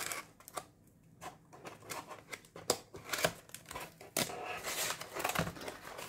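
A thin cardboard box being opened by hand: its tuck tab worked out of the slot and the flaps lifted, making irregular clicks and scrapes of cardboard.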